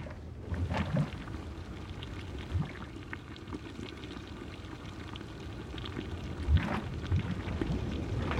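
Molten lava bubbling over a low rumble, with scattered deep plops, the loudest about a second in and again about six and a half seconds in.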